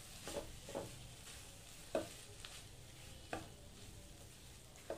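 Spatula stirring and scraping a chicken and vegetable filling around a non-stick kadhai, about five separate strokes over a faint sizzle as it cooks on low heat.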